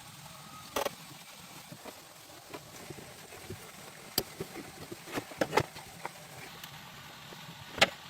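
Scattered sharp knocks and clicks, about six of them with the loudest near the end, over a low steady background hum.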